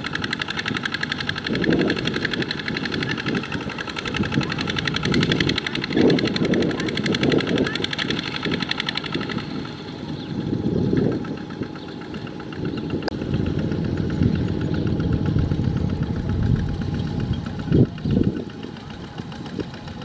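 A two-wheel walking tractor's single-cylinder diesel engine runs hard under load as its mud-caked wheels spin and dig through deep mud, pulling a rice-laden trailer. It gives a fast, even thudding that swells and eases in loudness several times as the machine strains and then breaks free.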